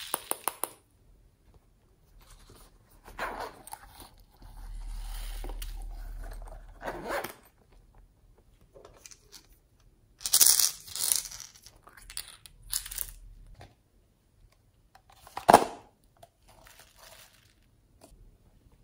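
Small plastic toy pieces being handled over a tray of slime and foam beads: scattered clicks and taps with crinkling, a louder rustling patch about ten seconds in, and one sharp knock a few seconds before the end.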